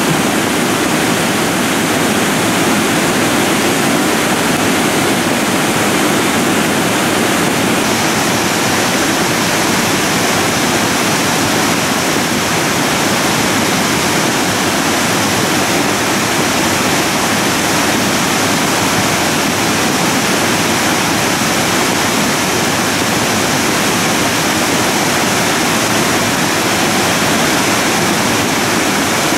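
Debris flow of mud, water and stones surging down a gully in loose moraine: a steady, loud rushing noise.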